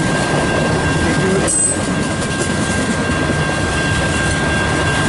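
Freight train cars rolling past at speed: a steady rumble of wheels on rail, with a thin, steady high-pitched whine riding over it.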